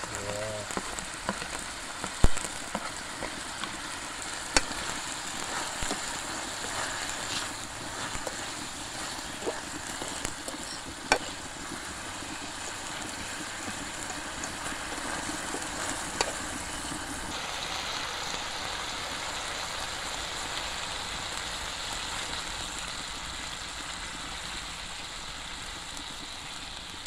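Chiton curry sizzling in a frying pan over a wood fire, a steady hiss with a few sharp clicks, the loudest about two seconds in. About two-thirds of the way in the hiss turns brighter, and near the end water is being poured from a bottle into the pan.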